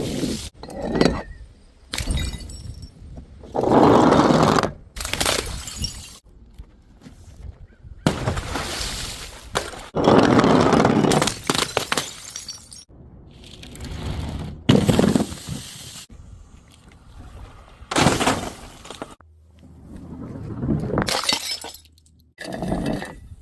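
Glass bottles smashing and shattering one after another: about ten separate crashes, some followed by a longer spill of breaking glass.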